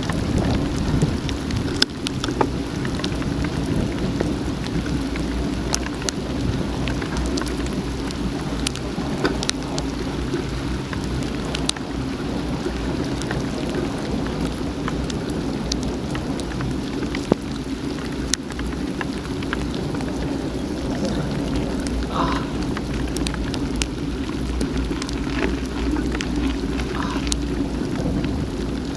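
Heavy rain, with drops striking the action camera's housing as scattered sharp ticks over a steady low rumble.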